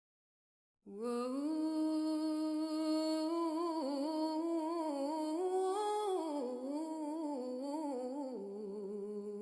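A single voice humming a slow wordless melody, unaccompanied, holding notes and stepping between them with a slight waver; it starts about a second in.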